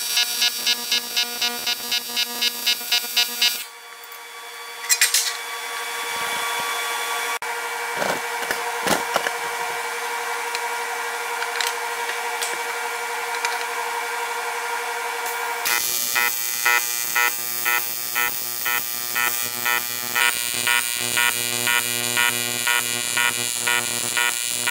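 TIG welding arc on aluminum, buzzing and pulsing a few times a second. The arc stops about four seconds in, leaving a steadier hum with a few clicks. It starts again pulsing more slowly about sixteen seconds in.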